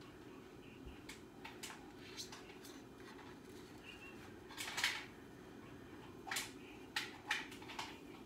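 Scattered light clicks and taps of a butter knife and an icing cup against a baking pan as icing is poured and spread over cinnamon rolls, the loudest cluster a little before halfway, over a low steady hum.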